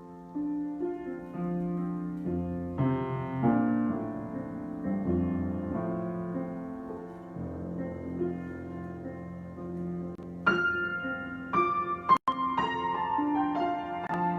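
Solo piano improvisation: slow, sustained chords in the middle register, then brighter single notes struck higher up from about ten seconds in. A sharp click with a momentary dropout comes about twelve seconds in.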